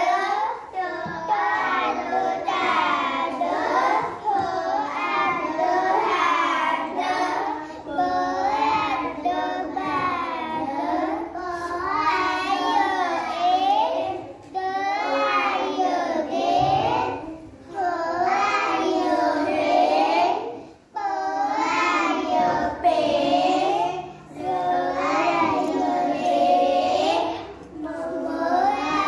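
A young girl reading aloud from an alphabet picture book in a sing-song chant, one short phrase after another with brief pauses for breath.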